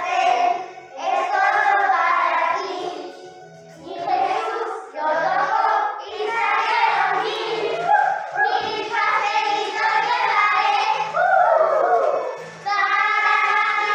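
A group of children singing a song together over backing music.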